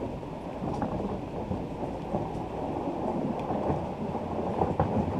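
Canoe being hauled along a gravel track: a steady crunching rumble of the hull or its cart over loose stones, with small knocks and rattles, growing louder as it comes closer.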